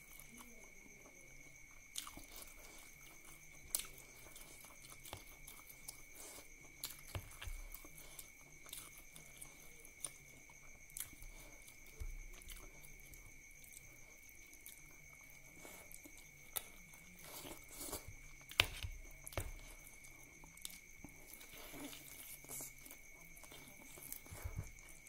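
Close-up eating sounds: chewing with wet mouth smacks and scattered clicks as duck curry and rice are eaten by hand, and gnawing on a duck bone near the end. A faint steady high-pitched whine runs underneath.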